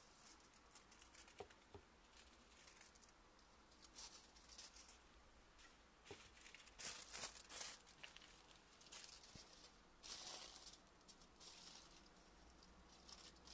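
Aluminium foil crinkling and rustling faintly as it is handled and spread flat, in short, scattered spells.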